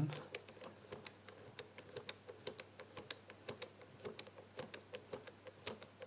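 Number wheels of an ABUS Tresor Chain Catena Combo 1385 combination bike lock being turned by hand, giving faint, irregular small clicks, several a second, as the combination is decoded by feel.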